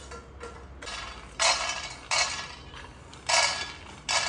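Spatula stirring seeds as they dry-roast in a pan: four short scraping strokes, roughly one a second, over a faint steady hum.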